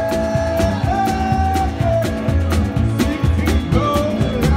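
Small live band playing an upbeat rock-and-roll tune: guitars and a drum kit keeping a steady beat over a pulsing bass, with long held lead notes that slide in pitch.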